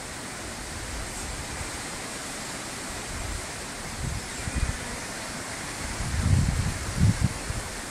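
Steady outdoor hiss with a few low rumbling bumps, about four seconds in and again around six to seven seconds in, the loudest near the end.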